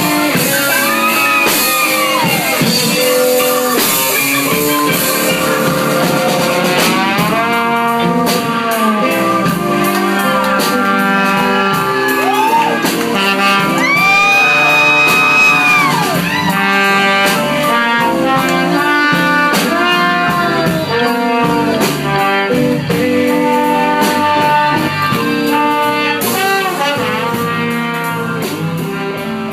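A band playing a song with horns, brass such as trumpet and saxophone carrying gliding melody lines over a steady beat.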